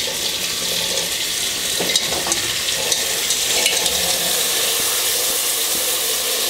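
Steady sizzling of pork, garlic and onion frying in an aluminium pressure cooker as drained beans are tipped in from a bowl, with a few faint clicks.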